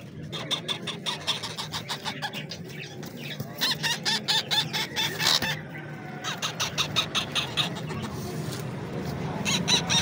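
Parrot chicks giving rapid, rhythmic begging calls, several a second, while being hand-fed from a syringe, with a short pause about halfway through.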